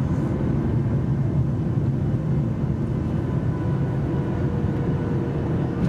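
Jet airliner cabin noise heard from a window seat over the engine as the plane rolls along the runway: a steady, deep rumble with a few faint, steady tones above it.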